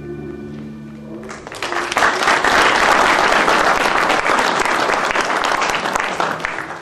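The last held notes of some music die away, and about a second in an audience breaks into applause, which swells, holds and tapers off near the end.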